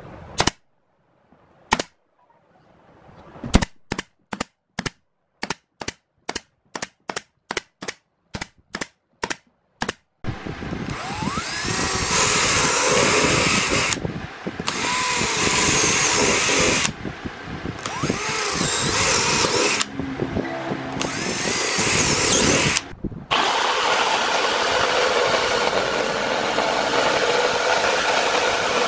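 A pneumatic nail gun fires a quick series of shots, about two a second, into a plywood box. Then an electric drill bores holes through a plywood panel in several runs, with short breaks between them.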